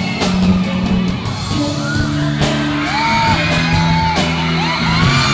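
Live band music with a male singer, played loud in a large hall. From about halfway through, high rising-and-falling whoops ride over the music.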